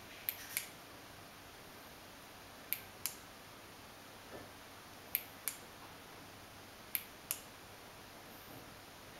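Sharp clicks in pairs, four times, the two clicks of each pair about a third of a second apart: a push-button switch pressed and released, cycling the LED light bar through its colours and flash modes.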